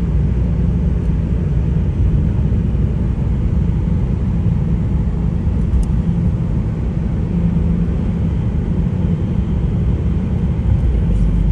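Steady low rumble of a car driving on a wet road, heard from inside the cabin: tyre and engine noise.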